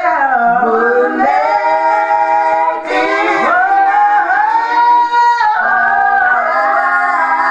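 A woman singing a gospel melody unaccompanied, holding long notes and sliding between them, with a falling run near the start and a dip and rise in pitch about halfway through.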